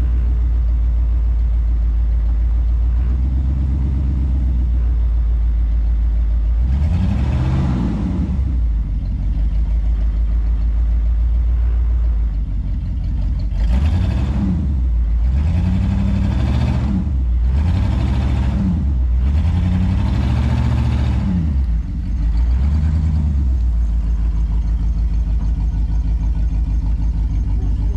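Old Ford Bronco engine idling, revved about six times with short throttle blips that rise and fall in pitch, mostly in the back half.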